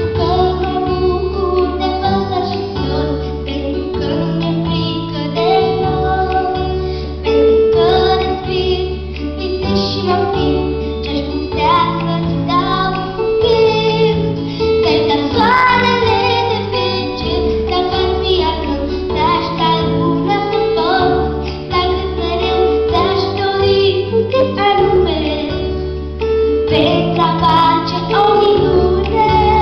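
A young girl singing a song into a handheld microphone over instrumental accompaniment with held bass notes.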